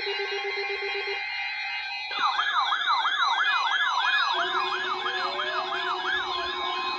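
Steady tones, then from about two seconds in a siren yelping in a rapid rise and fall about three times a second, joined later by a second overlapping siren pattern and a steady lower tone.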